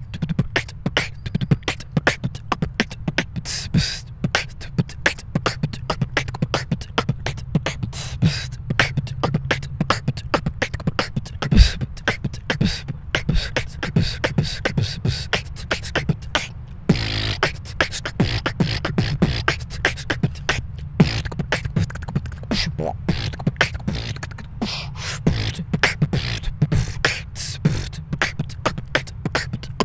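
Human beatboxing recorded close on a handheld recorder's microphone: a fast, dense stream of mouth-made kick, snare and hi-hat strikes over deep bass. Just past halfway there is a held buzzing sound, after which the rhythm picks up again.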